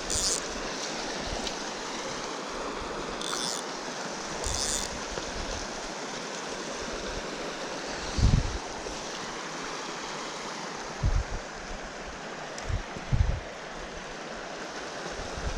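Small mountain trout stream flowing steadily over rocks. A few short high hisses come in the first five seconds, and several low wind bumps hit the microphone in the second half.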